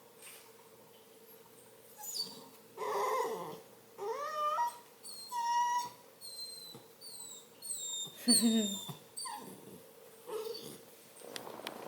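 Redbone Coonhound puppy whining: a series of short, high-pitched whines starting about two seconds in, a few sliding up and most sliding down in pitch.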